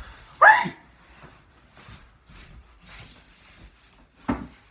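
Handling noises: a short, loud scrape about half a second in, faint rubbing, then a knock near the end.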